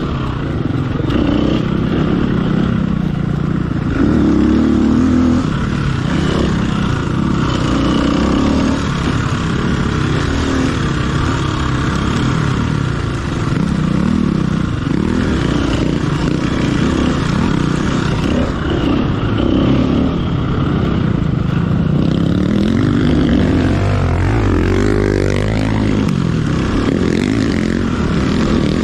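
Off-road motorcycle engine running hard under the rider, its revs rising and falling over and over as the throttle is worked along a race course.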